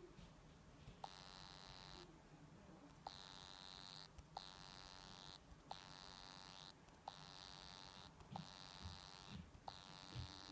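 Faint, high-pitched electronic buzz from a new Meizu MX5 smartphone, coming on for about a second at a time with a small click at each start and stopping briefly in between, seven times. It is the phone's buzzing fault.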